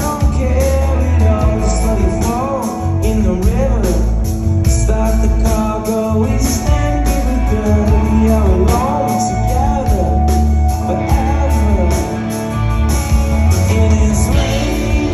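Live rock band playing: a male singer over acoustic and electric guitars and drums, with a steady beat and a heavy low end.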